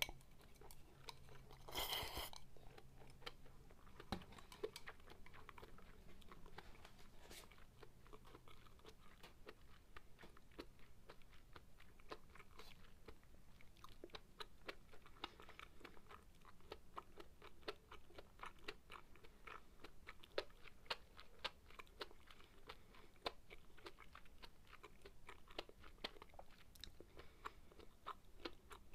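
A person chewing a mouthful of food close to the microphone: many soft, irregular mouth clicks and smacks, with one louder noise about two seconds in.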